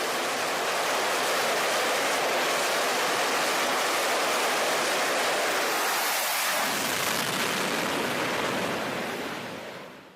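Loud steady rushing noise, even across high and low pitches, fading out quickly near the end.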